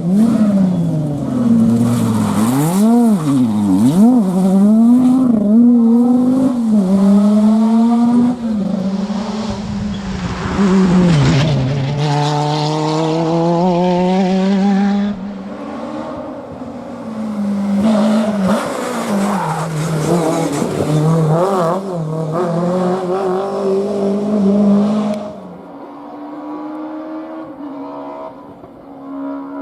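Historic rally cars' engines driven hard, revs repeatedly climbing and falling through gear changes and corners, with tyres squealing. Near the end it drops to a quieter, steadier engine note.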